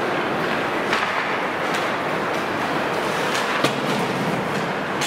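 Ice hockey game sound from a rink: a steady noise of play on the ice, with a few sharp clacks of sticks and puck. The loudest clack comes a little past three and a half seconds in.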